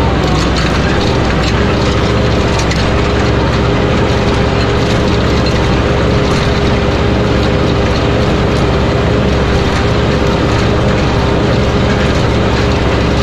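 Mahindra tractor's diesel engine running steadily under load while pulling a chisel plow through compacted ground, with a steady whine and scattered light rattles from the hitch and plow frame.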